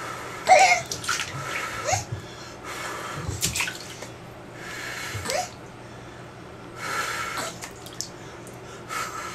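A person blowing soft puffs of air on a baby in the bath, about six puffs a second or two apart, with a few short rising voice sounds between them.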